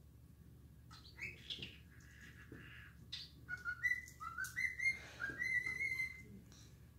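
Cockatiel singing quietly: a few soft chirps, then a run of short whistled notes that each slide upward, ending in a longer held whistle near the end.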